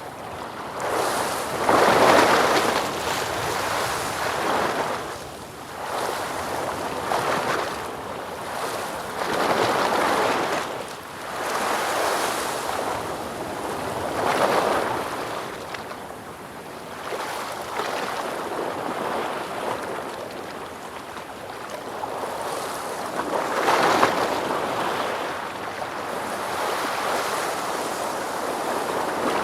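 Ocean waves rolling in and washing out, the surf rising and falling in swells every two to three seconds. The biggest surges come a couple of seconds in and again about five seconds before the end.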